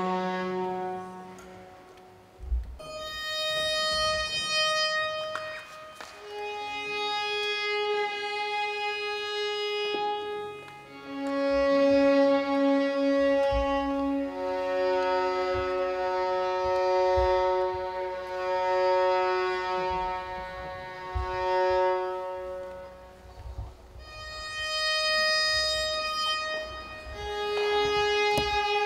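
Bowed strings, led by a violin, playing a series of long held notes of a few seconds each, with short breaks between them.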